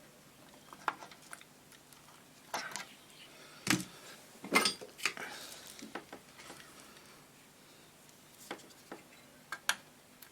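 Scattered light clicks and clinks of small hand tools and parts being handled on an electronics workbench, a few sharp knocks spaced irregularly, over a faint steady hum.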